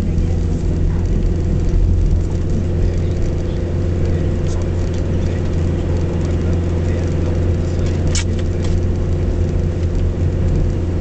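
Car engine and tyres heard from inside the cabin while driving on a snow-packed road: a steady low drone, with a light click about eight seconds in.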